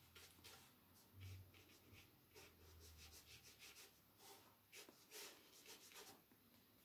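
Faint, soft strokes of a watercolour brush rubbing wet paint across paper, several short strokes in a row.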